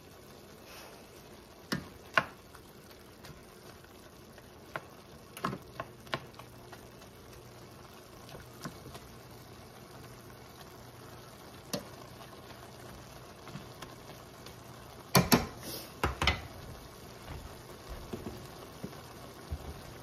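Thin-sliced beef and onions frying in a stainless steel skillet with a low, steady sizzle, while a spoon stirs and knocks against the pan; the loudest knocks and scrapes come in a cluster about fifteen seconds in.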